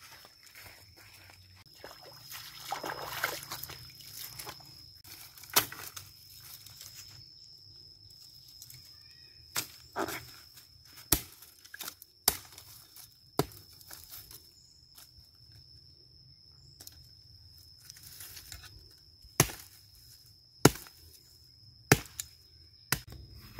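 Woody stems and dry sticks being broken or cut off by hand, heard as about ten sharp cracks at irregular intervals, with leafy rustling early on. Under it runs a steady, high-pitched insect drone.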